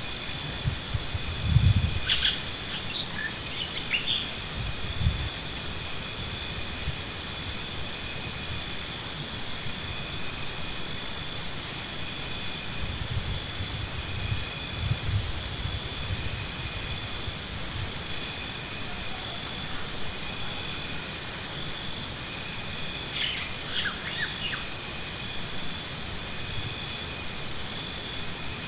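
Insects chirring in high, rapidly pulsed trains that swell and fade every few seconds, with a few short bird calls and a couple of low thumps near the start.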